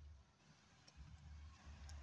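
Near silence, with a faint low rumble and two or three faint ticks.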